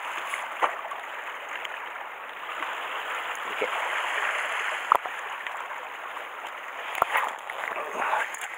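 Sea water lapping and washing over shore rocks, a steady hiss with no tones, broken by three sharp knocks or clicks about half a second, five seconds and seven seconds in.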